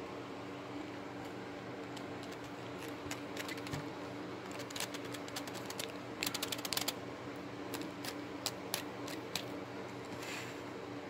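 Light irregular clicks and taps of a toy monster truck and fingers being handled close to the microphone, thickest in the middle, over a faint steady hum.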